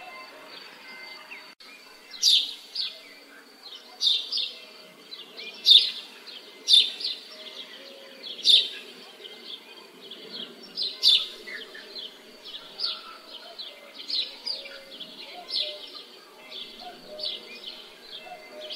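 Small birds chirping, with sharp high chirps coming in quick clusters about once a second over a steady low background hum.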